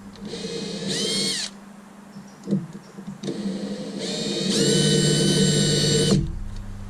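Electric power drill running in two short bursts, its motor whine climbing in pitch as it spins up; the second, longer burst is the louder. A single knock falls between them.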